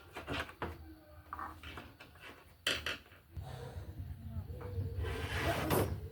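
Scattered clicks and knocks of objects being handled, over a low hum that grows louder from a little past three seconds in.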